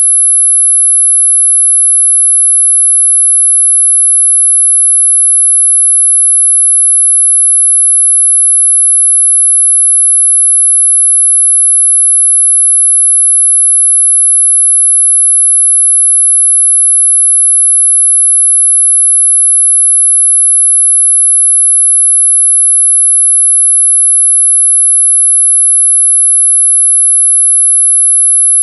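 Mosquito ringtone: a single pure, very high-pitched electronic tone held steady at one pitch and loudness.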